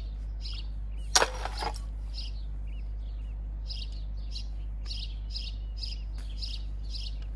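A small songbird chirping over and over, short evenly spaced chirps at about two or three a second, most steadily in the second half. A brief loud burst of noise about a second in is the loudest sound, over a steady low hum.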